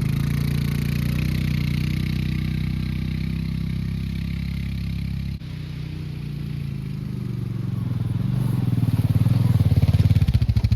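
Honda Rubicon four-wheeler engine pulling hard while dragging a heavy log, running steadily with a short dip about halfway. It grows louder and revs up near the end as it strains under the load.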